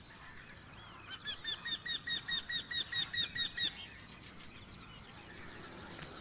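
Eurasian wryneck calling: a quick series of about thirteen repeated, evenly spaced notes, about five a second. The series starts about a second in and lasts about two and a half seconds.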